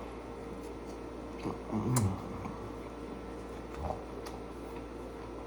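A man eating a sandwich close to the microphone, with a short hummed 'mmm' and a small click about two seconds in and a soft knock near four seconds.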